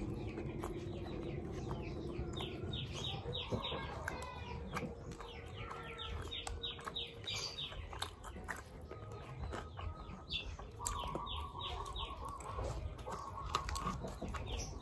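Chickens clucking in the background, with rapid high chirping repeating several times a second throughout. Occasional light clicks of a metal spoon on a plastic plate.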